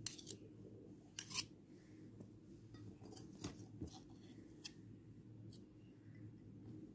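Faint scattered clicks and scrapes of a spoon against the bowl and glass as thick whipped dalgona coffee is spooned onto milk, over a low steady room hum.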